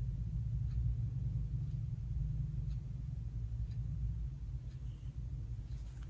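Room tone: a steady low hum, with faint light ticks about once a second.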